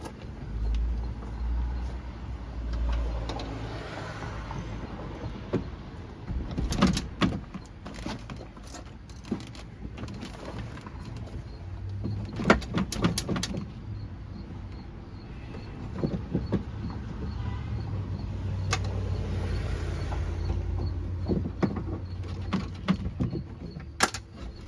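Hand work on the door handle bolt inside a car door: low bumps and handling thumps at first, then clusters of sharp metallic clicks and rattles from tools and parts being worked.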